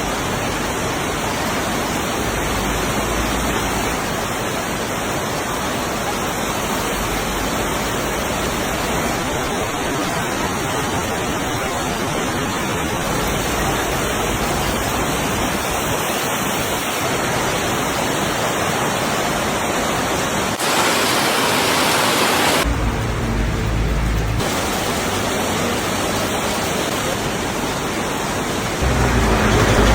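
Heavy rainstorm downpour: a dense, steady hiss of rain. The sound changes abruptly twice in the last third, and a low rumble comes in near the end.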